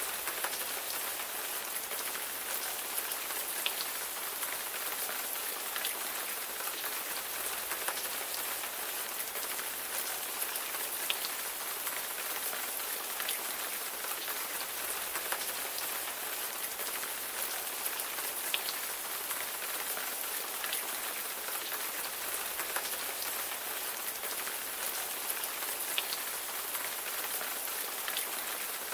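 Steady rain falling on a surface, a dense even hiss with scattered louder single drops ticking through it.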